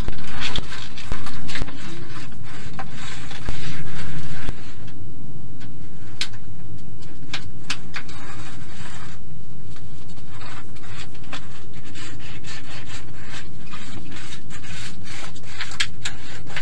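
Homemade hand-held roller sheet-metal bender being pulled along the edge of a galvanized steel sheet, its rollers rubbing and scraping on the metal as the edge is formed. Scattered clicks run through it, and there are a couple of short pauses.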